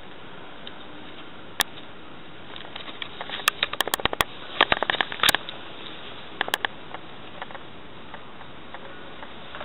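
Rubber Wellington boots stepping and scuffing on a wooden floor: a single knock, then a cluster of sharp clicks and knocks in the middle, and a last pair, over a steady low hiss.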